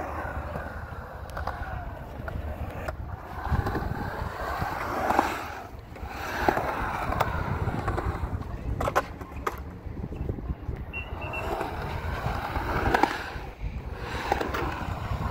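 Skateboard wheels rolling over rough concrete, the rumble swelling and fading as the rider pushes and carves, with a few sharp clacks from the board at intervals.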